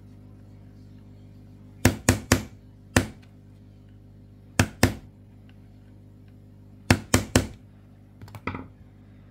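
Back of a screwdriver handle striking a small screwdriver used as a punch, tapping a push pin into a polymer pistol frame. Nine sharp knocks come in groups of two or three, then a few lighter taps near the end.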